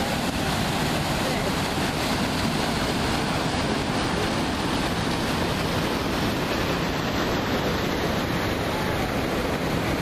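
Small waterfall pouring over rock into a pool: a steady rush of water.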